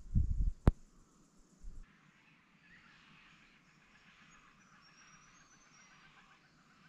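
A few low rumbles of handling on the microphone and one sharp click under a second in; then quiet bush ambience with faint high bird chirps.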